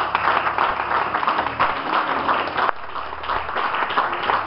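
Church congregation applauding: a dense, steady patter of many hands clapping.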